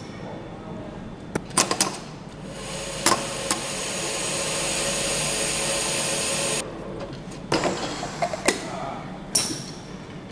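Automated assembly tooling working on an aluminium engine cylinder head: sharp metallic clicks and clanks, with a steady hiss of about four seconds in the middle that cuts off suddenly.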